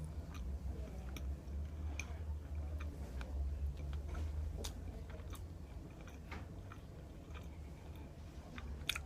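Close-up chewing of food, with scattered wet mouth clicks over a steady low hum, and a sharper click near the end.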